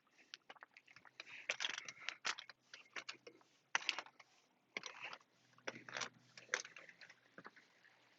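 Someone climbing a telescoping ladder: an irregular run of knocks, clunks and scuffs as shoes land and scrape on the rungs.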